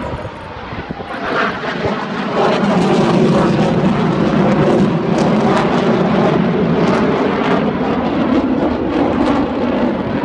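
Jet engines of Blue Angels F/A-18 Hornets flying past, a loud roar that swells about two seconds in and holds.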